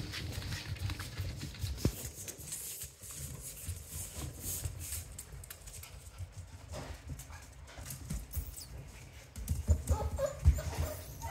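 A young Australian Shepherd puppy's paws and claws pattering and clicking on a hard floor, with louder thumps near the end as it pounces.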